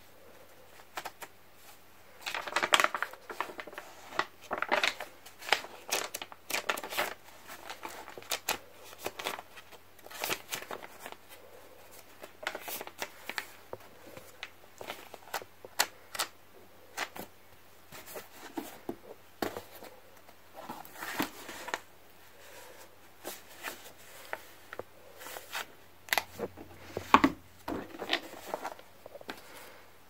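Pages of a handmade tea-infused paper journal being leafed through and handled: a run of short, irregular papery rustles and flicks with small clicks.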